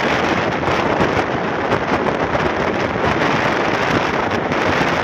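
Strong wind rushing over the microphone of a vehicle travelling along the road, a steady loud rush with no clear engine note.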